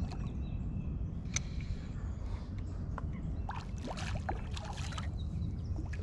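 Water splashing in short bursts, a hooked largemouth bass thrashing at the surface as it is brought in: once about a second in, then a cluster of splashes around four seconds in, over a steady low rumble.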